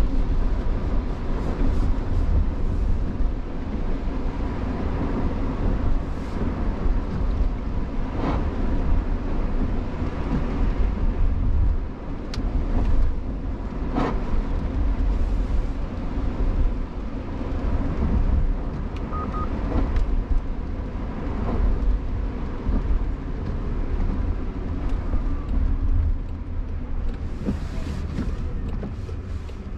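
Cabin road noise of a Jaguar I-PACE electric car driving on a rain-soaked road: steady tyre hiss and low rumble with a few scattered clicks and knocks. The noise eases near the end as the car slows down.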